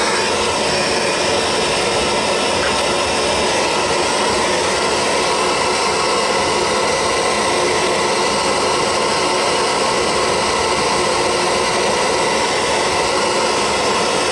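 Soldering torch flame burning steadily, a constant loud rushing hiss, as a copper pipe joint is heated for soldering.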